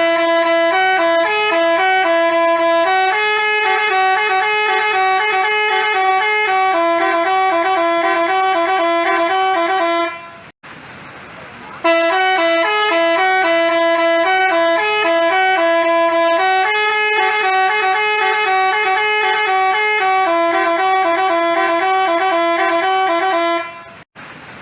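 Telolet bus horn (a Basuri horn) playing a melody of held, stepped notes. The tune cuts off about ten seconds in, and after a pause of a second or so the same phrase plays again.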